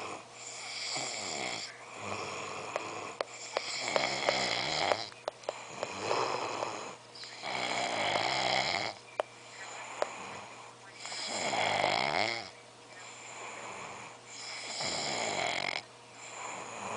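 A drunk person snoring, a long rasping snore every two to four seconds, with a few sharp clicks between snores.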